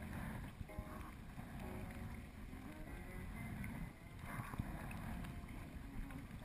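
Sea kayak paddling on choppy water: paddle blades dipping and splashing, with water slapping against the hull. Wind rumbles on the microphone underneath.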